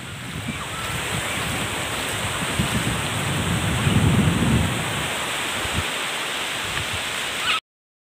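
Surf washing onto a beach with wind buffeting the microphone, the gusts strongest about halfway through. The sound cuts off abruptly near the end.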